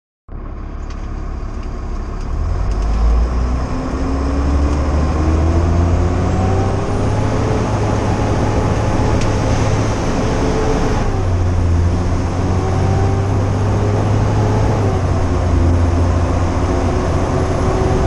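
Fire engine accelerating on a wet road, heard from the cab: a heavy engine rumble whose pitch climbs for several seconds, drops suddenly at a gear change about two-thirds of the way through, then climbs again, over a hiss of tyre and road noise.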